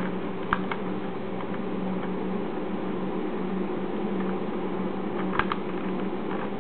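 Steady low electrical hum, with two quick pairs of sharp clicks from a computer mouse, about half a second in and again near the end.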